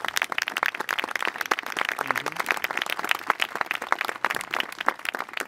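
Crowd applauding: many hands clapping in a dense patter that begins to thin near the end.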